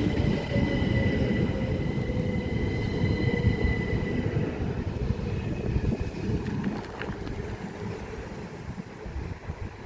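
Two coupled Class 377 Electrostar electric multiple units running past empty, with a low rumble of wheels on rails that fades as they move away. A steady high whine dies out about halfway through.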